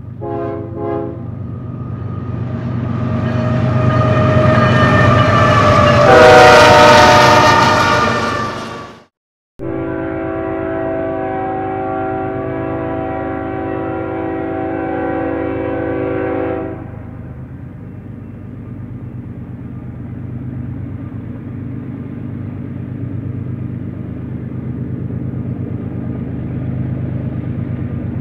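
Diesel freight locomotive horn: a couple of short blasts, then a long blast that grows loud and drops in pitch as the train passes, cut off suddenly about nine seconds in. A distant locomotive horn then holds one steady chord for about seven seconds, followed by the steady low rumble of the approaching train.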